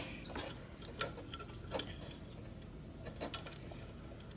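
A few light, scattered clicks and taps of hand tools and small metal engine parts being handled during lawnmower engine teardown.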